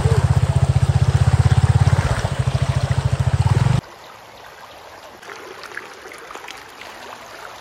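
Motorcycle engine running with an even low firing pulse as the bike moves through floodwater, cutting off suddenly a little over halfway through. After that, floodwater flows and trickles across the road, much quieter.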